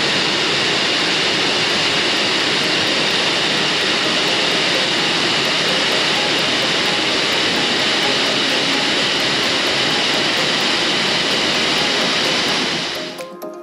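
Steady loud rush of a waterfall, cutting off abruptly near the end.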